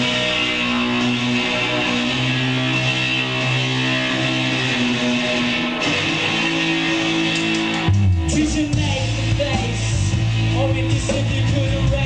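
Live rock band playing: electric guitar chords ring out for the first part, then about eight seconds in the drums and a heavier bass line come in and the full band plays.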